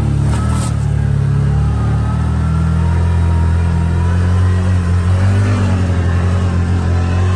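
ATV engine running under load as it climbs a steep, leaf-covered trail. It is a steady low drone whose pitch shifts and pulses a little after the middle.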